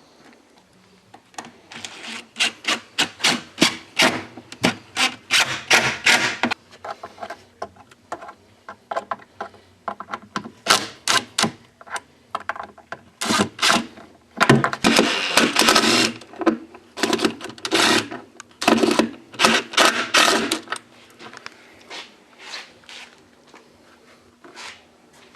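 Rapid back-and-forth rubbing strokes on wood, done by hand with an abrasive, in several bursts of about three to four strokes a second separated by short pauses.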